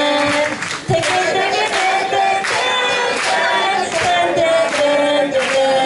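Several voices singing a melody together in held notes, with a steady beat about every 0.8 seconds.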